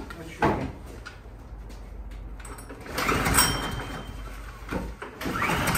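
Oleo-Mac GV53TK lawnmower's recoil starter cord pulled about three times, each a quick whirring pull, with the engine failing to catch. The owner traces the failed start to an air filter soaked with oil after the mower was tipped for the oil change.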